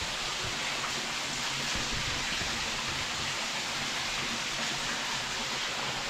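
Steady rush of a creek's water running over rocks inside a narrow rock gorge, an even hiss without breaks.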